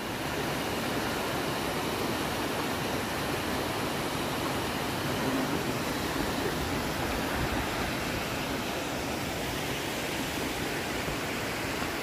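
Small waterfall and stream rushing steadily, an even wash of water noise.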